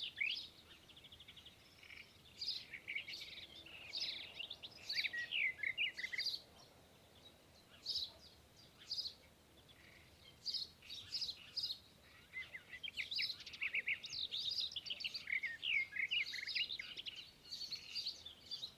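Birds chirping and calling: many short, quick chirps, many sliding down in pitch, coming in bursts with brief pauses between them.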